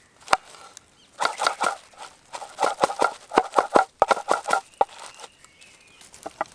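Kitchen knife chopping on a cutting board: sharp knocks in quick irregular runs of three to five strokes, with short pauses between runs.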